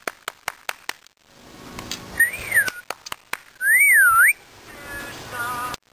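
A rapid run of sharp clicks, then a person whistles twice: a short wavering whistle, then a louder one that rises, falls and rises again.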